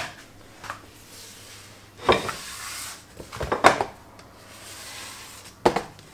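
Soft rubbing of hands brushing flour on a countertop, broken by three short clatters of kitchen things being handled on the counter: about two seconds in, near the middle, and near the end.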